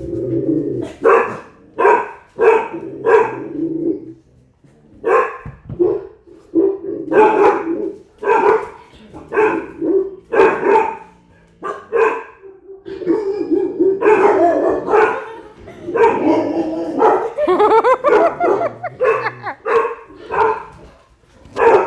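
Large Cane Corso dogs barking: deep barks in quick runs, one after another, with a wavering, higher cry about three-quarters of the way through.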